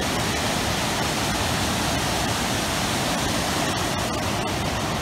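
Steady rushing roar of a waterfall and its cascades pouring over rock ledges into a churning pool.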